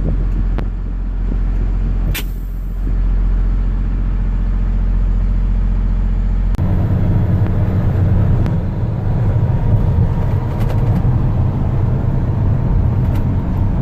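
Car driving, heard from inside the cabin: a steady low engine and road rumble with hiss, which grows louder and rougher about six and a half seconds in.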